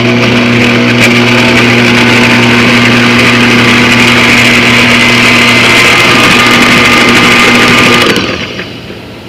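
Electric stand mixer running at medium speed, its beater churning thick pound cake batter in a stainless-steel bowl: a loud, steady motor whine with a whirring hiss. It drops away about eight seconds in.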